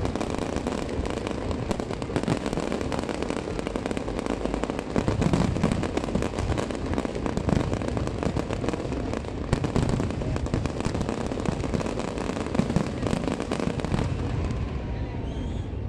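Aerial fireworks display: a dense, continuous barrage of bangs and crackling shell bursts, thinning a little near the end.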